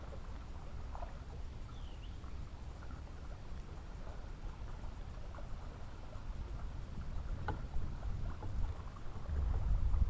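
Steady low rumble of river water and wind around a small aluminium fishing boat, with a few faint knocks, the rumble swelling near the end.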